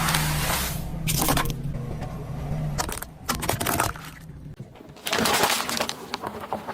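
A car tyre rolling over objects and crushing them: several bursts of crunching and crackling, with a low steady hum for the first three seconds or so.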